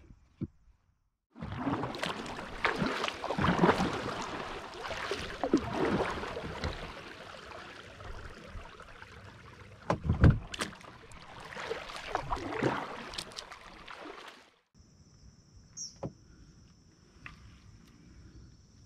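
Kayak paddle strokes: water swishing and splashing in repeated swells as the paddle dips and pulls, with a heavy thump about ten seconds in. After a sudden cut near the end it turns much quieter, leaving a thin steady high tone and a couple of light clicks.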